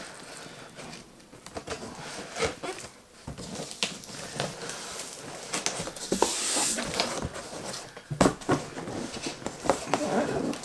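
Cardboard packaging being handled and opened: scattered knocks, taps and rustles, with a longer hissing rustle about six seconds in.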